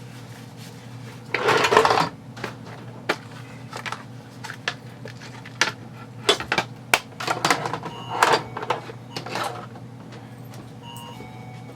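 Small metal airsoft gearbox parts (gears and bushings) being handled on a workbench: a short burst of clattering and scraping about a second and a half in, then a run of irregular clicks and clinks. A steady low hum runs underneath.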